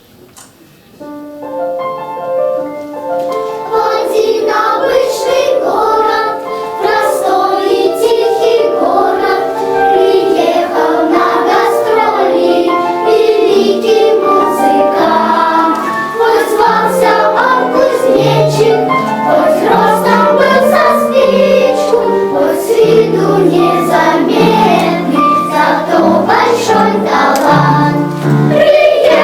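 A children's choir singing with musical accompaniment; the music starts about a second in and grows fuller by about four seconds in.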